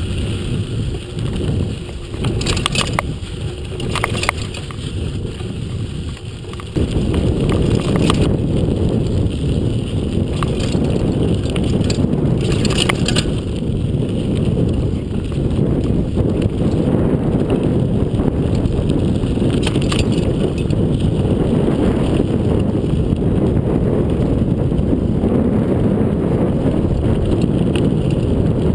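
Giant XTC 29er mountain bike ridden on a dirt singletrack: a steady rush of tyre and wind noise on the microphone, with occasional clicks and rattles from the bike over bumps. The rush gets much louder about seven seconds in.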